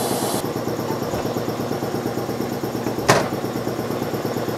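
Steady hum of running workshop machinery, with a high hiss that cuts off about half a second in. About three seconds in, a single sharp metal clack as the threading tool holder is taken off the lathe's quick-change tool post.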